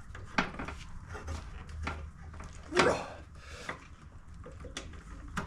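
Hands spinning on and snugging down a new oil filter on a Briggs & Stratton V-twin: scattered clicks, knocks and rubbing, the loudest knock about three seconds in.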